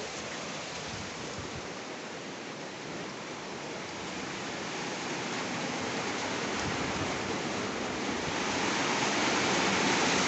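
Heavy rain pouring down in a steady hiss that grows louder through the second half.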